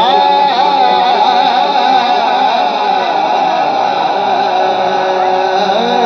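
Music: a wavering melodic line held through, with no words.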